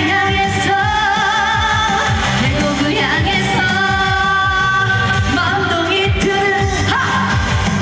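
Trot song performed live: a female singer holding long notes with a wide vibrato over a pop backing track with a steady beat.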